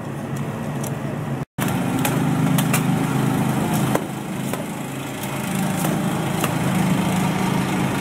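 A small petrol engine running steadily, its pitch shifting a little, with scattered light clicks and knocks. The sound cuts out completely for a moment about one and a half seconds in.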